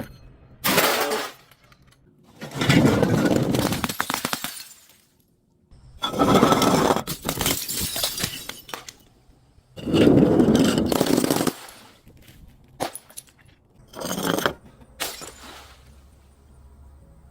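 Brittle objects being crushed and breaking, in four long crunching bursts of one to three seconds each, followed by a few shorter cracks near the end.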